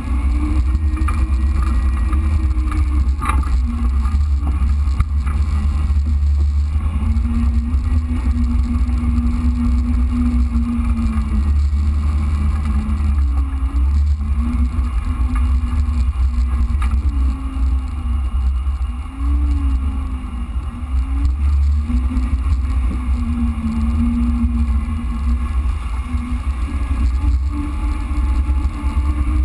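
Jeep Wrangler JK engine running at trail speed, its pitch rising and falling repeatedly with the throttle, over a heavy, steady low rumble.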